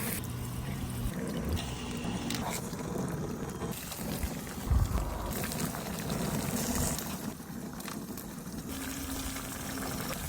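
Cooking liquid bubbling steadily, as in a pot on the boil, with a dull thump about five seconds in.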